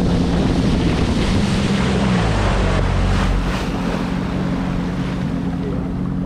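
Sea-Doo FishPro personal watercraft engine running under way, with wind buffeting the microphone and water rushing off the hull. About two seconds in, the engine pitch drops as the throttle eases off, and it then runs steadily at lower revs.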